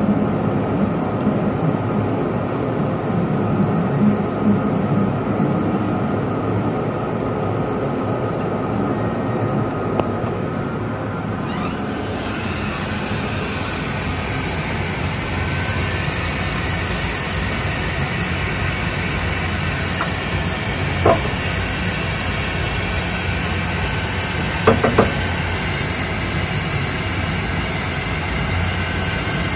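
Laser cutter with a rotary attachment running, giving a steady machine hum and hiss. About twelve seconds in, a louder high hiss sets in. A few light knocks come later.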